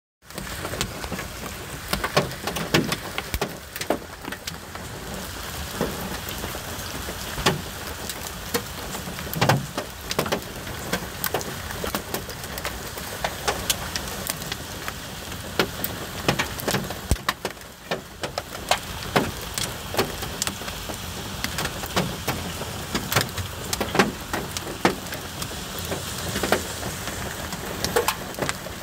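Hailstorm: a steady hiss of heavy rain with hailstones striking hard surfaces in irregular sharp cracks, a few of them much louder than the rest.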